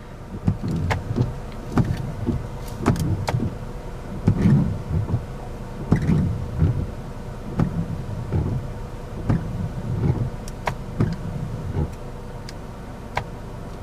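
2018 Chevrolet Equinox windshield wipers sweeping back and forth, a steady run of motor-driven strokes with light clicks, heard from inside the cabin. The strokes stop about two seconds before the end.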